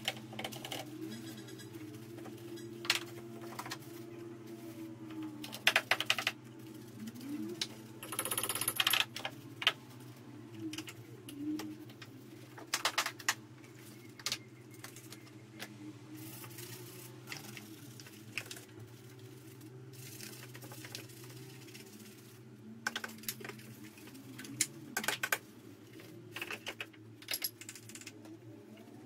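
Irregular clicks, knocks and short scrubbing rasps from a brush and hands working over a soapy car engine bay, over a steady low hum.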